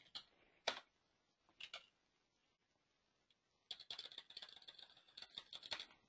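Faint computer keyboard typing: a few single keystrokes, then a quick run of keys about two-thirds of the way through.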